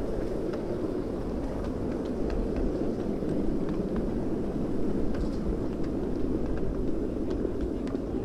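Ride-on miniature steam train rolling slowly along its track: a steady rolling noise with scattered light clicks from the wheels and cars.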